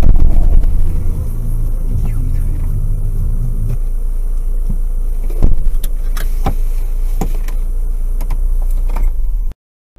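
Car driving on a highway, heard from inside the cabin: a steady low engine and road rumble whose hum shifts lower about four seconds in, with a few short knocks and rattles. It cuts off suddenly near the end.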